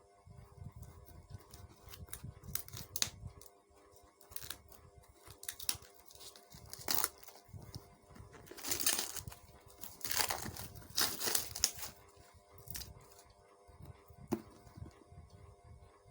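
Book packaging being torn open and crinkled by hand: irregular tearing and rustling, loudest in two runs about 9 seconds in and from 10 to 12 seconds in.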